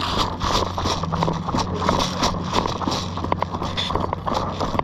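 Quick, regular footsteps of people walking over rough outdoor ground, several steps a second, over a steady low hum.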